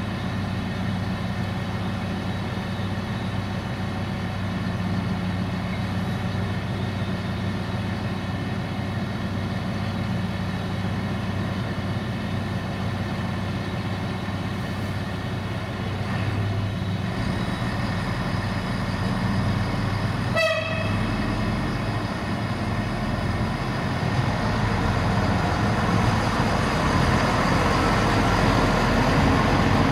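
CFR class 060-EA (LE 5100 kW) electric locomotive approaching with a freight train: a steady low hum that grows louder as it nears, with a short horn toot about two-thirds of the way through.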